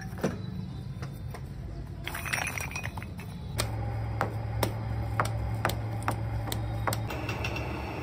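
Fired clay cups and shards clinking as they are handled, then wet clay being kneaded by hand with regular slaps about twice a second, over a steady low hum.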